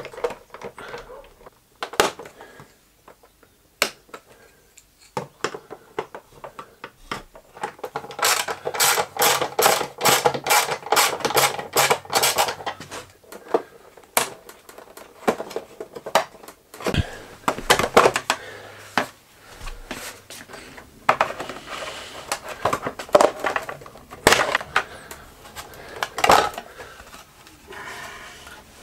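Clicks, knocks and plastic snaps of a motorcycle side cover being taken off: a hand tool undoing the cover's bolt, a dense run of rapid clicking about a third of the way in, then sharp snaps and knocks as the clipped-in plastic panel of a Honda CT125 is pried loose and lifted away.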